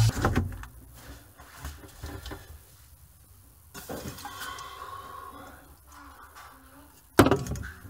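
Aluminium energy-drink cans being handled at an open fridge: quiet clinks and rustles, then one sharp knock about seven seconds in.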